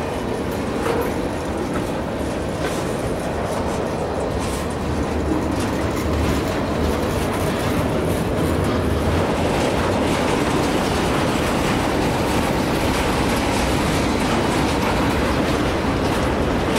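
Freight train's autorack and tank cars rolling past: a steady rumble of steel wheels on rail, with repeated clicks as the wheels cross the rail joints.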